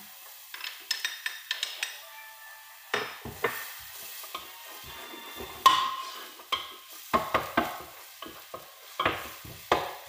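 Ginger-garlic paste sizzling in hot oil in a stainless steel pot while a utensil stirs it, with repeated clicks and scrapes against the pot. About halfway through, a sharp knock on the metal pot rings briefly.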